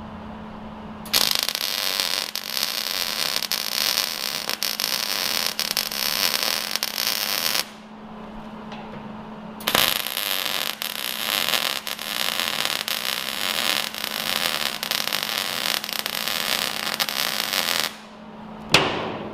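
MIG welder laying two beads on 1-inch steel angle, a steady crackling sizzle that starts about a second in, stops for two seconds, runs again for about eight seconds, then gives a brief blip near the end. A steady low hum runs underneath.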